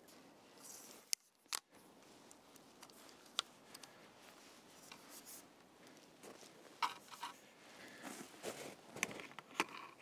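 Camera gear being handled as a Nikon Z7 camera is taken out and fitted to a tripod: faint scattered clicks, scrapes and rustles, with a few sharper clicks standing out.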